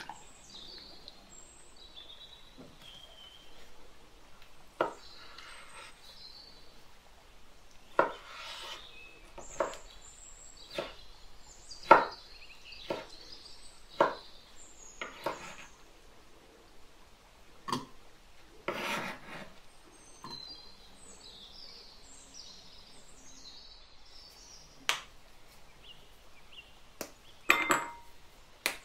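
Kitchen prep noises: a knife knocking on a wooden cutting board as canned peach slices are cut, and clinks of food and utensils against glass bowls. These come as separate sharp knocks a second or more apart, with a quick cluster near the end.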